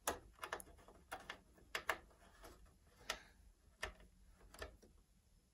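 Irregular small sharp clicks and ticks, two or three a second, from a short screwdriver turning the lamp-module screws into the plastic housing of an NEC M300X projector.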